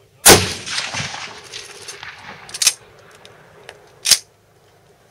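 A loud rifle shot from a Schmidt-Rubin long rifle in 7.5x55 Swiss, fired about a third of a second in, its report echoing in the shooting stand and dying away over about two seconds. Two shorter, sharper gunshots follow about two and a half and four seconds in.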